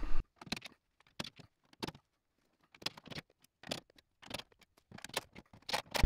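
Scattered light clicks and taps at irregular times, with near silence between them: the sheet-metal top panel and screws of a front-load washer being handled as the panel comes off. No driver motor runs.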